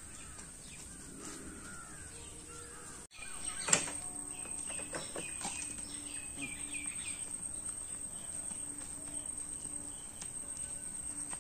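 Birds calling outdoors: repeated arching calls, then a brief cut-out about three seconds in. A single sharp knock follows, then a run of quick high chirps.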